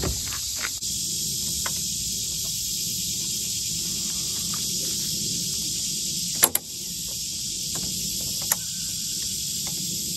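Steady high drone of insects, with a few short knocks from the outboard motor being handled and set on the boat's transom, the loudest about six and a half seconds in.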